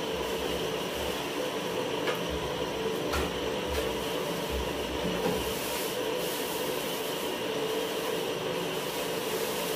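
Plastic wrapping rustling and crinkling as a tripod is pulled out of its carry bag and plastic sleeve, with a few light handling knocks and clicks, over a steady background hum.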